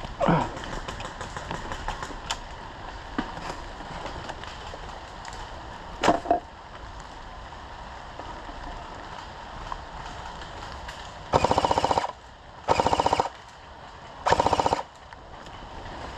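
Airsoft machine gun firing three short bursts of rapid automatic fire about a second apart, near the end.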